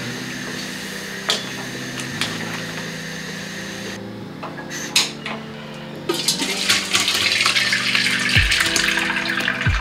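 Soya chunks bubbling in boiling water in a steel wok, with a few light clinks of a steel spoon against the pan. About six seconds in, the water and chunks pour into a metal colander with a loud, continuous splashing as the water drains through.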